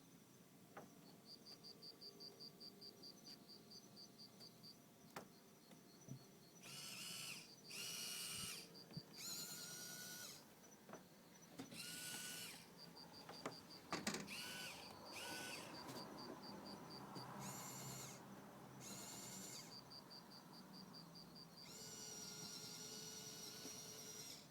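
Small electric motor of a remote-controlled rotating searchlight whirring in repeated short runs, each a second to a few seconds long, as the lamp pans and tilts. Between the runs there is a faint, rapid ticking, about five or six a second.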